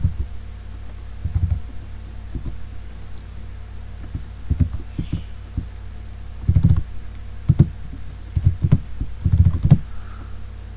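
Computer keyboard being typed on in short, irregular bursts of keystrokes, over a steady low hum.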